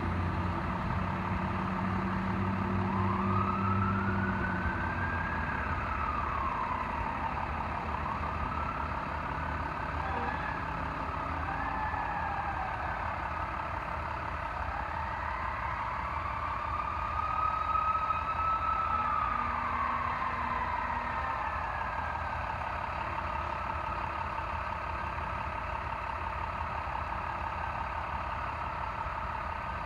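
Federal Q2B mechanical siren on a fire truck, winding up and coasting down in slow, uneven rising-and-falling wails, over a low engine drone.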